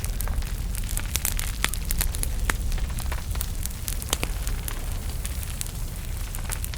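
Small wood fire burning in a fireplace, with irregular sharp crackles and pops over a steady low rumble of the flames.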